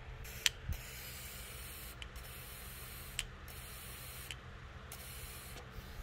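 Air blown by mouth into a Kohler XT675 carburetor's fuel inlet, hissing through in several puffs that break off while the float is worked up and down, with a few light clicks. This tests the float needle valve: the air flow should stop when the float lifts the needle into its seat.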